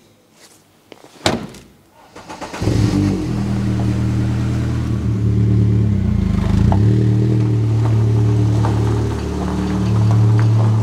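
MG ZR 160's 1.8-litre K-series VVC petrol engine starting after a sharp knock, then running steadily at the tailpipe, with a brief change in revs about six seconds in. It gets louder near the end as the car pulls away.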